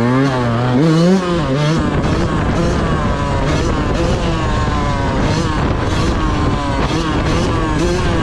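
Yamaha YZ125 two-stroke single-cylinder engine being ridden, its revs rising and falling again and again with the throttle and gear changes.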